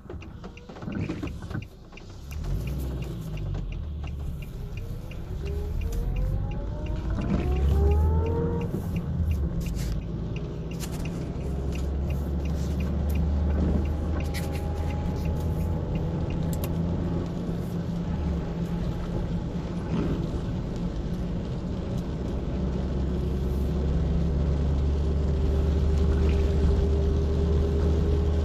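Car engine and road rumble heard from inside the cabin: the engine pitch rises as the car accelerates for a few seconds, then it settles into a steady cruise.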